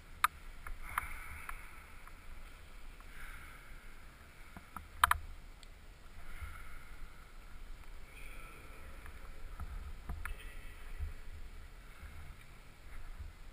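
Scuffs and rustles of a climber moving up an indoor climbing wall, picked up by a helmet-mounted GoPro, with scattered clicks of shoes and hands on the holds and one sharp knock about five seconds in.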